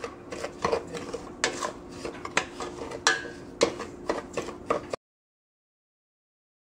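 A spoon scraping and knocking against a stainless steel pot as semolina is stirred while it dry-roasts in ghee, with a faint steady hum underneath. About five seconds in the sound cuts off to dead silence.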